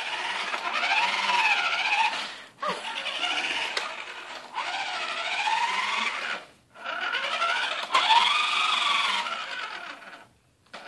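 Toy remote control monster truck's small electric motor and gears whirring in four runs with short pauses between them, the whine rising and falling in pitch as it speeds up and slows.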